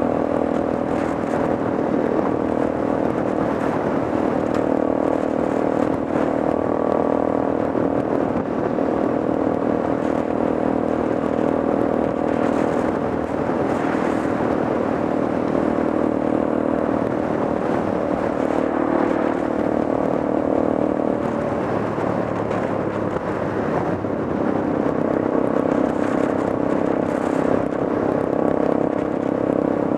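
Motorcycle engine running at a steady cruise, with wind rush over the microphone. The engine note sags for a few seconds about two-thirds of the way through, then comes back up.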